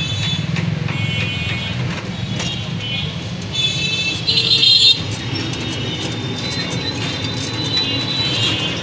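Street traffic heard from an open passenger rickshaw as it moves: a steady low rumble from the ride, with repeated high-pitched horn honks from the surrounding traffic, loudest about four and a half seconds in.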